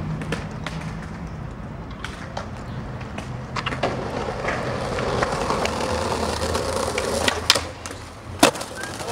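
Skateboard wheels rolling over paving stones, then two sharp clacks near the end as the board pops up and strikes a stone ledge.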